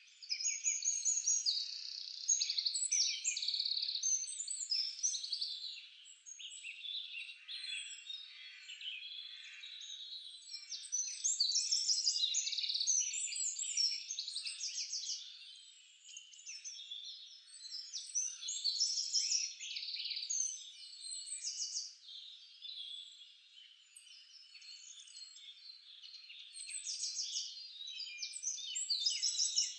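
A dense chorus of many birds singing at once: overlapping high chirps, quick whistled glides and fast trills, swelling and fading in loudness.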